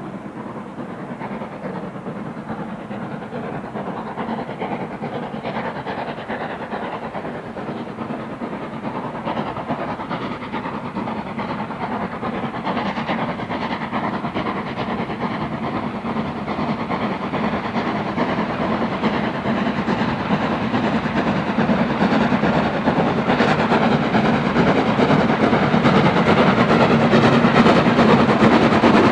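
Steam locomotive hauling a train of coaches, its exhaust beats getting steadily louder as it approaches.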